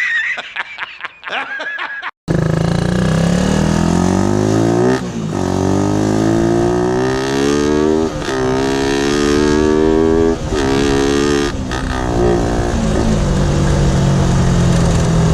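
Suzuki Raider 150 with a big-elbow exhaust header accelerating through the gears: the engine note climbs, drops at each upshift about four times, then holds steady. In the first two seconds, before the engine comes in abruptly, there is a short high gliding sound.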